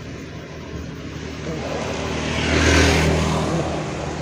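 An engine passing by: a low motor drone that swells to a peak just under three seconds in, then fades away.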